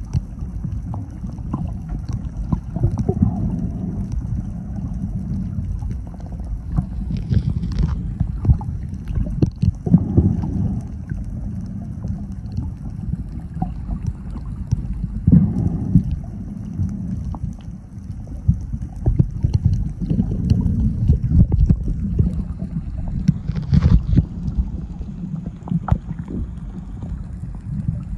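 Muffled underwater noise picked up by a camera held below the surface: an uneven low churning rumble of moving water, with scattered small clicks and knocks.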